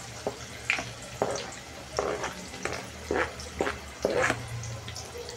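Chopped onion and green chillies frying in hot oil in an aluminium pot: a faint sizzle with irregular crackles and pops, about two a second.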